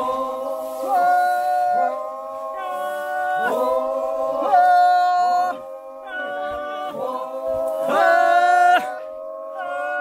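Several men singing together in long, held, drawn-out notes in harmony, the pitch shifting about once a second: a group work chant sung while treading out rice.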